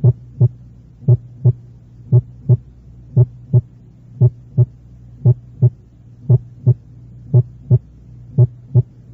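Recorded human heart sounds beating in a steady lub-dub rhythm, about one beat a second, nine beats in all. Each beat is two short thumps, and the first is sharp and louder than the second: the pattern of a PR interval of 0.12 s. A steady low hum runs underneath.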